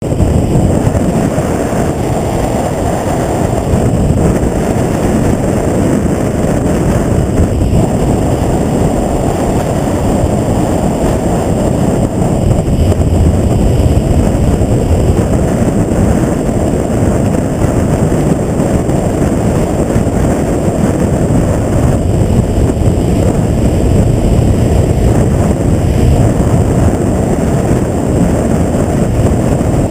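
Loud, steady wind buffeting the microphone on a moving motorcycle, a dense low rush with the vehicle's running noise mixed in.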